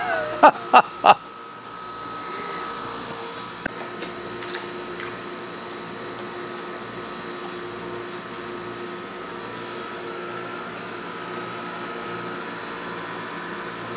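Three sharp, short sounds in quick succession about a second in, then a steady machine hum with a few fixed tones, like an appliance fan running, with faint occasional clicks.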